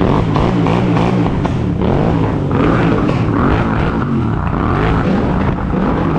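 Several Royal Enfield 650 parallel-twin motorcycles running loud together on aftermarket exhausts (S&S full system, TEC 2-into-1, Zard slip-ons), their engine notes repeatedly revved up and falling back over one another.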